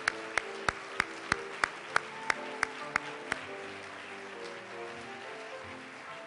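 One person clapping close to the microphone, about three sharp, evenly spaced claps a second, over music. The claps stop about three seconds in and the music plays on.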